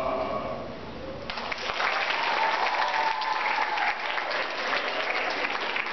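An audience of schoolchildren breaks into applause about a second in, with many hands clapping.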